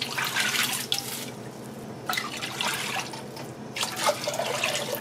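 Fish stock being poured from a large glass measuring cup into an enamelled cast-iron pot, splashing as it fills the pot, in three surges.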